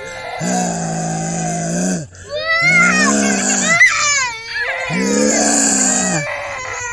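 A voice making drawn-out monster moans and wails: three long low moans, with high squealing, wavering cries over the middle one.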